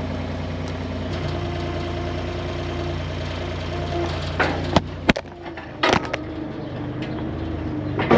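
An engine idling steadily, with a few sharp knocks about halfway through and another at the very end; after the knocks the deepest part of the engine hum drops away.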